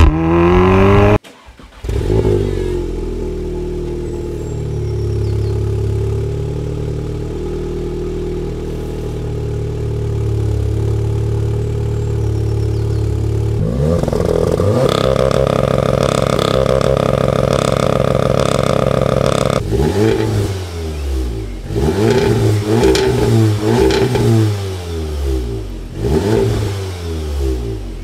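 Audi S3 8V facelift's turbocharged 2.0-litre four-cylinder through a stainless Scorpion exhaust. The car accelerates away, cut off abruptly about a second in. The engine then idles steadily, is held at higher revs from about halfway, and over the last eight seconds is blipped repeatedly, revs rising and falling.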